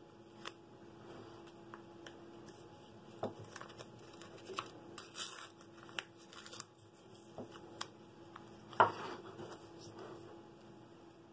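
Blue painter's tape being handled: short ripping pulls off the roll around five to six and a half seconds in, with small crinkles and clicks as the tape is pressed and smoothed onto a wooden block, and a sharp knock near nine seconds in.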